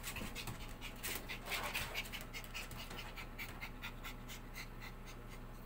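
A Maltese puppy panting quickly, about five short breaths a second, growing fainter near the end.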